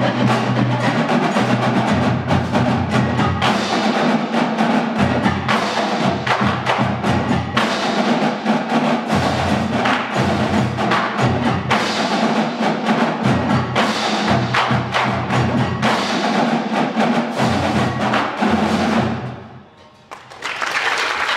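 Drumline playing loud, driving rhythms on snare and bass drums over repeating deep low notes, stopping sharply about 19 seconds in. Audience applause starts up near the end.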